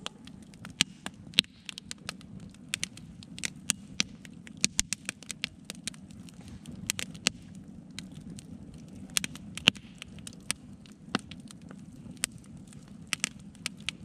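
Split-log wood campfire crackling, with sharp irregular pops about two a second over a steady low background hiss.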